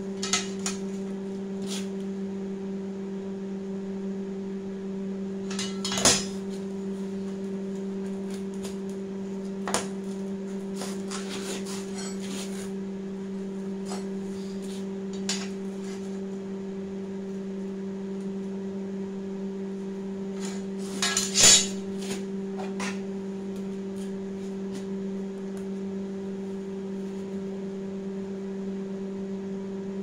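Steel pieces clanking and scraping against each other and the bench as they are handled and laid out for welding, a scattering of sharp metal knocks with the loudest about six seconds in and a pair about twenty-one seconds in, over a steady low hum.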